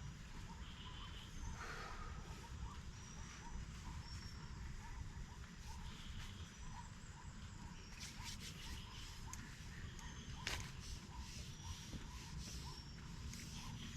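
Faint outdoor nature ambience: a steady low rumble under a ticking animal call that repeats about two or three times a second, with short high chirps. From about eight seconds in, scattered sharp clicks join it.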